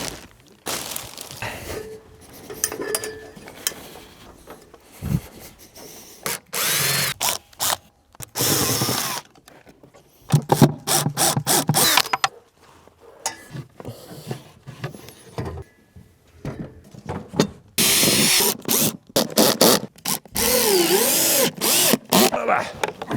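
Power drill running in several short bursts of one to two seconds, driving screws, with quieter handling noises between the bursts.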